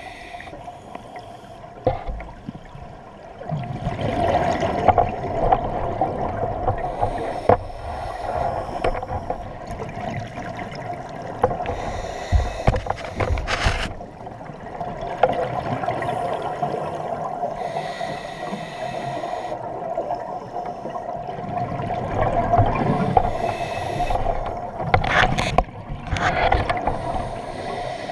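Underwater sound of scuba regulator breathing: rushing, bubbling swells every few seconds as divers breathe and exhale bubbles. A steady hum runs underneath.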